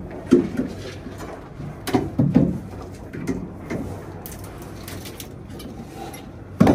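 A steel pry bar knocking and scraping against wood and concrete while stripping old concrete formwork. It makes a string of irregular knocks and clanks, the loudest near the end.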